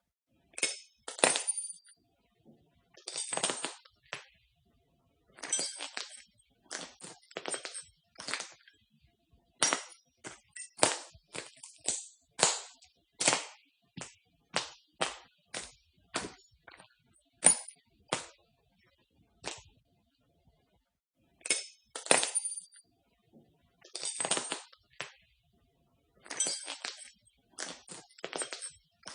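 Footsteps crunching over broken glass: irregular clusters of sharp crackling crunches with clinks, step after step, with short pauses between groups.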